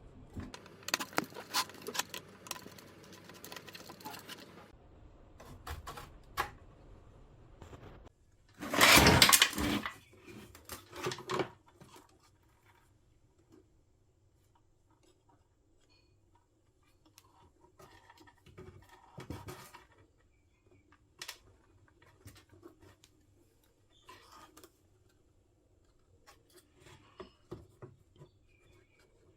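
Scattered clicks, taps and light rattles of small plastic radio parts being handled, with rustling in the first few seconds and a louder rushing noise lasting about a second and a half around nine seconds in.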